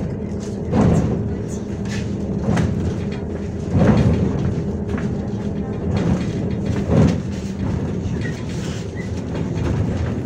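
Inside a MAZ-105 articulated city bus under way: the engine running steadily with a low hum, and the body giving irregular thumps and rattles over the road, the loudest about a second in and again near four and seven seconds.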